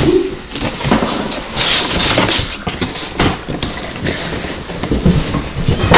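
Cardboard box and packaging being handled during unboxing: irregular rustling, scraping and scattered knocks.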